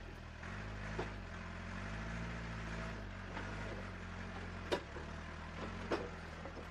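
Huina remote-control toy excavator crawling up a ramp on its tracks: a steady low electric motor hum that swells slightly in pitch, with a few sharp clicks along the way.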